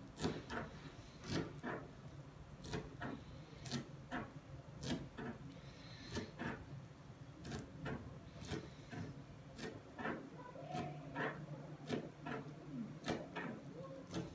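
A knife knocking and scraping on a cutting board as fish is cut and cleaned: irregular sharp knocks, about one or two a second, over a steady low hum.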